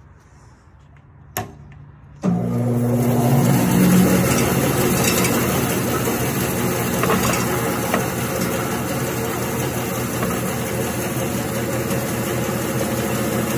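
A sharp click, then a Grizzly G0513X2BF 17-inch bandsaw starting suddenly about two seconds in and running loud and steady as its 1-inch Timberwolf resaw blade cuts through a green maple log.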